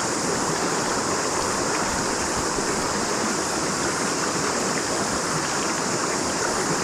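Steady rush of river water, even and unbroken, with a constant high hiss over it.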